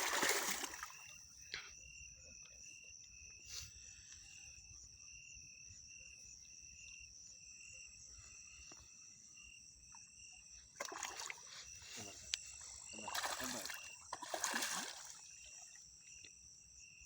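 Insects trilling steadily at a high pitch, one call pulsing in quick regular beats. A few louder rushes of noise break in at the very start and again about two thirds of the way in.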